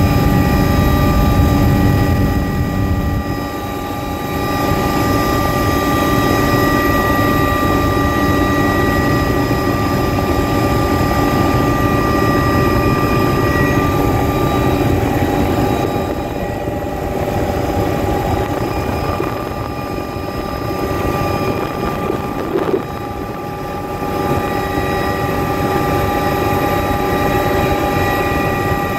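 Helicopter engine and rotor noise inside the cabin in flight: a steady drone with several steady high whining tones over it.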